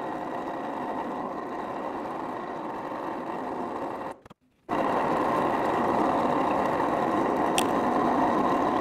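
Old benchtop pillar drill running and boring into pallet wood, a steady whirring grind. It breaks off for about half a second some four seconds in, then comes back louder on the next hole, where the owner thinks the bit struck a leftover nail in the old pallet stringer.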